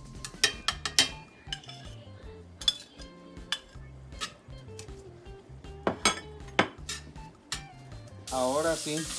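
Metal spatula scraping and clinking against a cast-iron skillet as diced onion is stirred, in irregular sharp strokes. About a second before the end a loud, even sizzle of the onion frying comes in.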